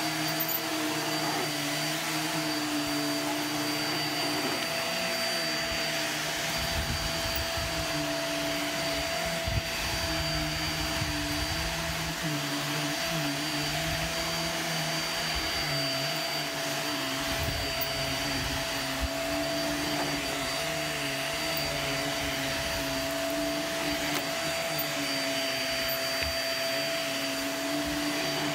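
Upright bagless vacuum cleaner running steadily with a constant whine as it is pushed back and forth over carpet and a rug; its lower hum wavers a little and a low rumble comes and goes with the strokes.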